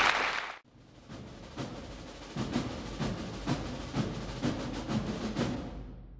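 Applause that cuts off about half a second in, then music with a steady drum beat of about two hits a second, fading near the end.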